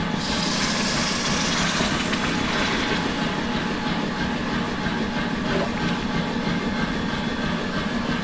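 Forge machinery running steadily: a motor hum with fast, even rattling. A hiss starts the sound and fades over about two seconds.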